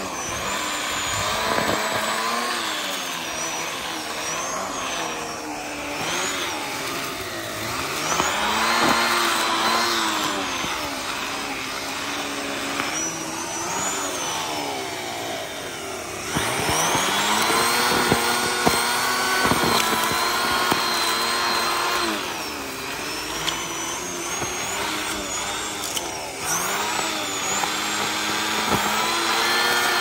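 Vacuum cleaner running with a mini turbo brush on a rug, its motor steady in level but dipping and climbing back in pitch several times as the nozzle is worked over the carpet.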